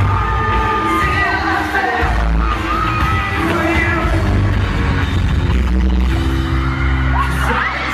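Loud pop-rock music with a singer over heavy, booming bass and drums.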